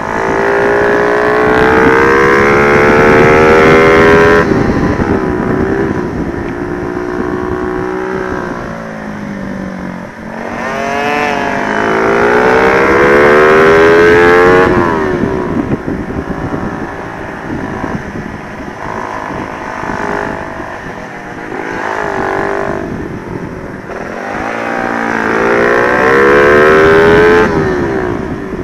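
Honda Sonic 125 motorcycle with a swapped-in 150cc engine, ridden hard: the engine revs climb in pitch three times, and the throttle is shut off sharply about four seconds in, again near fifteen seconds, and near the end, with the revs falling away in between.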